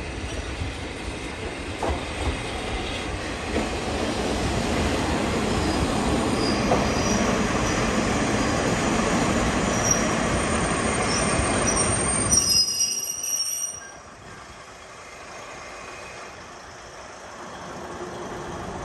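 Kominato Railway KiHa 200 diesel railcars running into a station: diesel engines running and wheels rumbling on the rails, growing louder, with high-pitched squeals toward the end of the approach as the train slows. The noise falls off sharply about fourteen seconds in.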